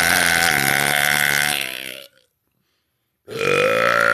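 A woman's loud, long, deliberate burp lasting about three seconds, then, after a second of silence, a second loud burp starting near the end.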